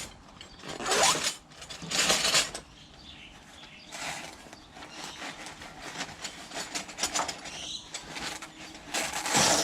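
Handling of a fabric tool roll bag and its pouches: several short rasping strokes, typical of a zip being opened or closed, with quieter rustling between.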